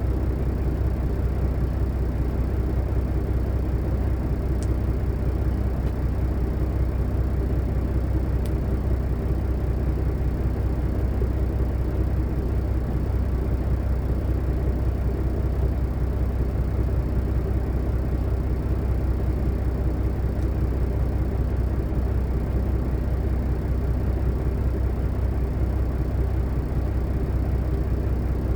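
Steady drone of an idling diesel engine from a white-noise background recording, with a couple of faint clicks.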